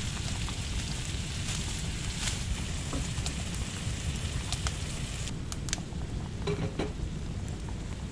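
Minced meat and chopped vegetables sizzling in a griddle pan on a wood stove, stirred with a wooden spoon, with a low steady rumble underneath. The hiss eases about five seconds in, and light clicks and scrapes of the spoon follow.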